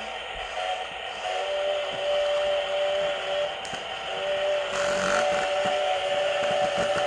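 Two battery-powered toy Husqvarna-style chainsaws playing their electronic engine sound through small speakers, overlapping, loud. The drone briefly dips a little past halfway, then both run again.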